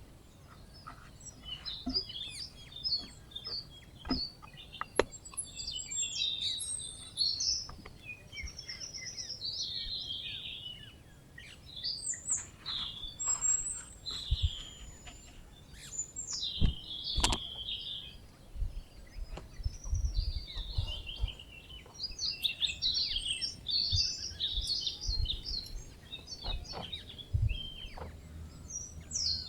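Several birds chirping and singing in quick, overlapping phrases, with a few dull knocks underneath.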